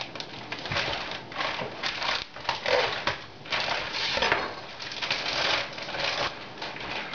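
Plastic bag of raw chicken leg quarters crinkling and rustling in irregular bursts as it is handled.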